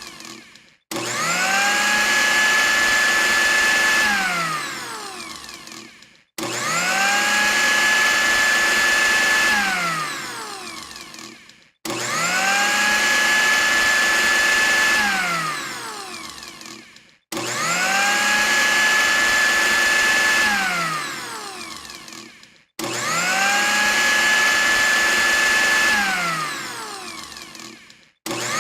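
Electric blender motor switched on, spinning up to a steady high whine, running for about three seconds, then switched off and winding down to a stop. The on-off cycle repeats about every five and a half seconds, five full times, with a sixth start near the end.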